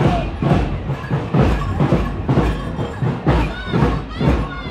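Procession drums beating a steady rhythm of about two beats a second, over the noise of a festival crowd.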